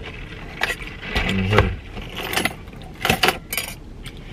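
Eating and drinking handling noises: a series of sharp clicks and rattles from a foam drink cup and a plastic fork, with a brief low hum of a voice just after a second in.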